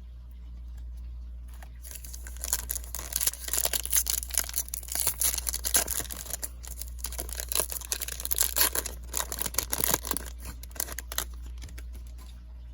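Foil wrapper of a Topps Chrome baseball card pack being torn open and crinkled: a dense crackling rustle from about two seconds in that stops shortly before the end.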